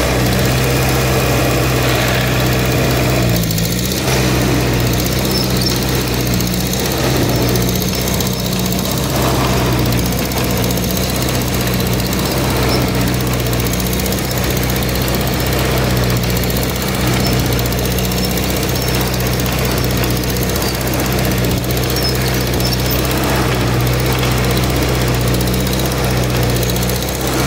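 Gray farm tractor's engine running steadily while pulling a plow through the paddock, heard from the driver's seat, with a brief dip in engine speed about three seconds in.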